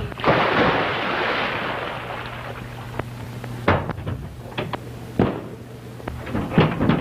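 Fight noises on an early sound-film soundtrack: a sudden loud crash right at the start that dies away over about two seconds, then scattered sharp knocks and thuds as men grapple, growing into a quick run of knocks near the end. A steady low soundtrack hum runs underneath.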